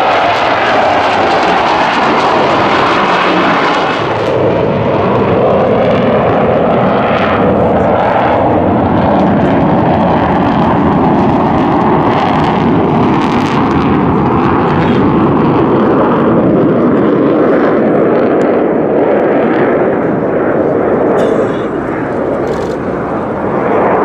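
Jet engine roar from a four-ship diamond of Blue Angels F/A-18 Hornets flying overhead: a loud, steady rush that eases slightly near the end.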